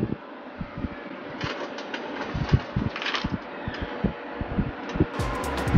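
Small screws and metal parts clicking and tapping as they are handled and fitted by hand on the underside of a cast-iron crepe maker plate, a dozen or so scattered light clicks. A steady low hum sets in near the end.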